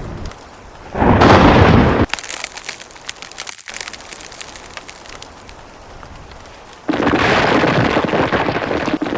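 Thunderstorm sound effect: a loud crash of thunder about a second in, a quieter patter of rain, then a sudden loud, steady downpour near the end.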